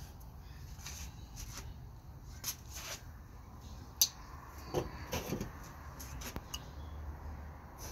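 Bypass pruning shears working on a thin scion stick, giving a few sharp clicks and snips, the sharpest about four seconds in and a small cluster a second later, over a low rumble.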